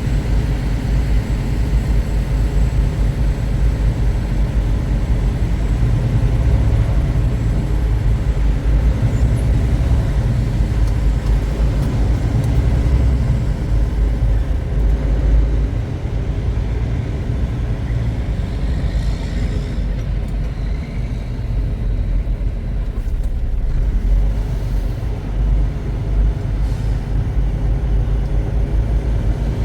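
Steady low rumble of a semi truck's diesel engine and road noise while driving, heard from inside the cab.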